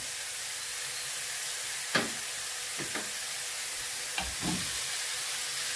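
Carrots, mushrooms and onion sizzling in a frying pan, a steady frying hiss, with a few short knocks about two to four and a half seconds in as mixed seafood is tipped in from a bowl.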